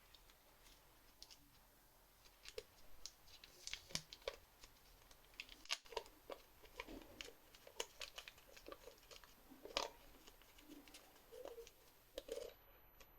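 Faint, irregular clicks, taps and crinkles of small plastic parts and packaging being handled close to the microphone, as in unboxing, over a faint high-pitched whine.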